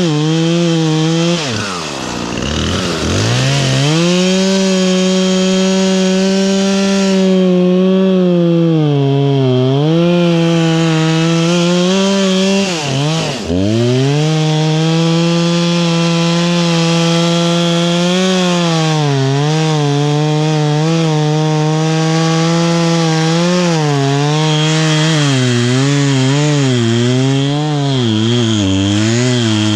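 Gas chainsaw running at high throttle, its engine note wavering as it cuts wood. Twice, about two seconds in and again near the middle, the pitch drops steeply as the throttle is let off and then climbs back up.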